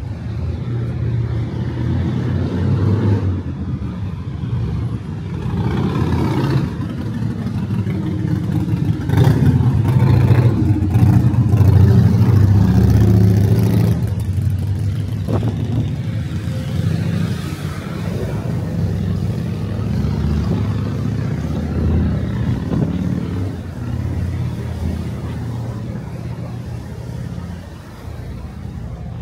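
Motor traffic passing close by: vehicle engines running and accelerating, loudest about ten to fourteen seconds in.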